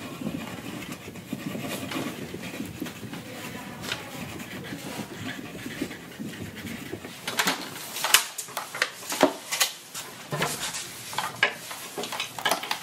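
Pencils scratching on paper. From about seven seconds in, a run of sharp clicks and knocks as plastic Lego bricks are pressed and stacked together.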